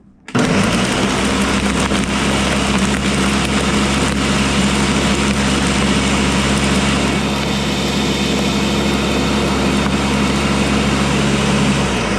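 Countertop blender switched on at full speed about a third of a second in, its motor running loud and steady while it blends a protein shake with ice and water.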